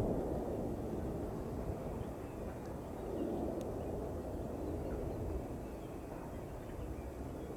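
Distant low rumble of a departing Boeing 747-8F freighter's four GEnx jet engines, easing off slightly at first and then holding steady.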